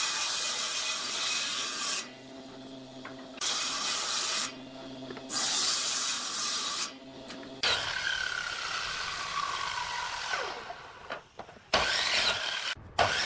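Table saw running with a steady motor hum, ripping wood in three passes, each a loud hiss of cutting lasting one to two seconds. Then a compound miter saw cuts through a board, and its motor winds down with a falling whine. Short loud bursts of another woodworking machine come near the end.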